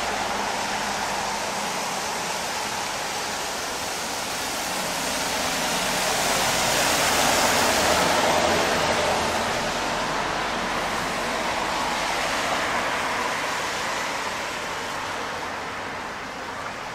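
Steady rain on a city street, a dense hiss that swells to its loudest around the middle and eases off near the end.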